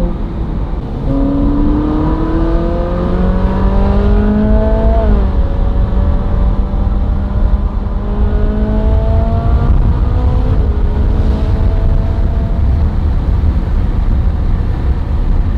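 Ferrari 458 Spider's naturally aspirated 4.5-litre V8 pulling through the gears, heard from inside the open cabin: the engine note climbs for about four seconds, drops at a gearchange about five seconds in, climbs again and drops at another shift near ten and a half seconds. A steady rumble of wind and road noise runs underneath.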